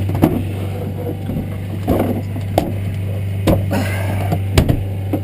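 A steady low hum on the boat, with a handful of sharp knocks and clatters on the boat, about five in all, as the freshly caught coho salmon is handled.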